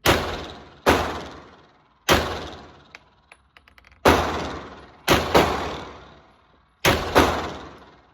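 Glock 17L 9mm pistol firing eight shots at an uneven pace, some in quick pairs, each shot ringing out for about a second.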